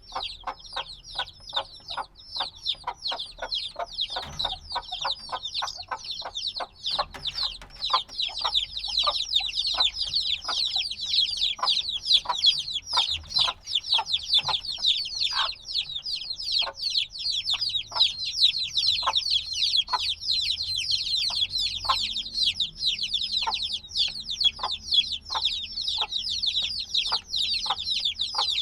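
A brood of chicks only a few days old peeping loudly and continuously, many high chirps overlapping at once; this steady distress peeping is typical of chicks that still need warmth from a mother hen.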